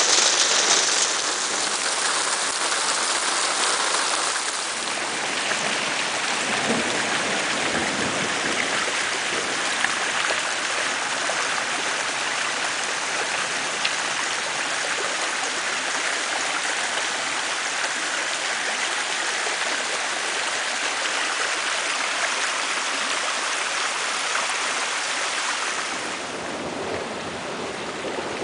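Steady rush of water: a heavy downpour at first, then storm runoff flowing fast over a gravel track once the rain has eased. The first few seconds are the loudest.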